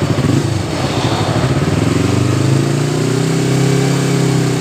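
Yamaha MT-25 parallel-twin engine being revved through a custom slip-on exhaust with an added silencing chamber ahead of the silencer. The pitch rises about a second and a half in, holds at roughly 2,300–2,500 rpm, and starts to drop near the end.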